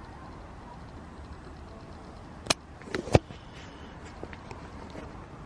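Three short, sharp knocks about halfway through, over a low, steady outdoor background hum.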